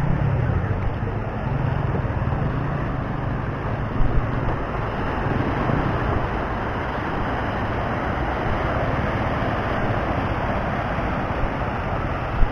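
Steady rush of wind on the microphone and small waves breaking and washing up the sand, with a low rumble in the first few seconds and two brief knocks, one about four seconds in and one near the end.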